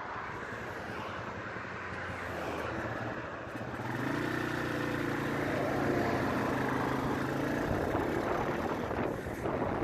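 A 200cc Asya Ultra 150 motorcycle riding along, with its engine running over wind and road noise. The revs rise about four seconds in, hold steady, then fall away about two seconds before the end.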